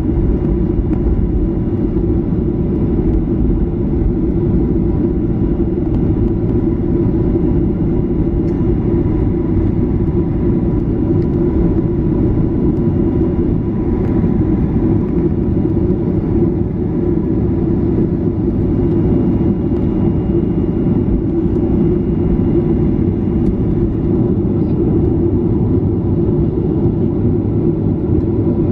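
Steady cabin noise inside a Boeing 737 taxiing: a low rumble from the engines at idle and the rolling airframe, with a faint steady whine on top and no change in level.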